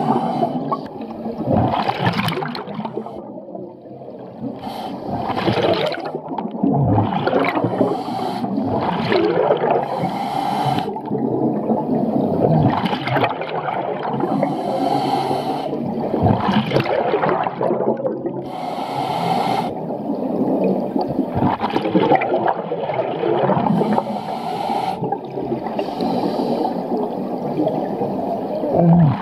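Scuba regulator breathing heard underwater: hissing inhalations and gurgling bursts of exhaled bubbles, the hiss surging every few seconds.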